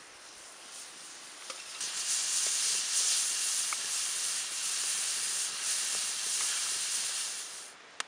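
Chopped meat sizzling on a hot Himalayan salt plate as it is worked with a metal spatula, with a few light spatula clicks. The sizzle grows louder about two seconds in and cuts off suddenly just before the end.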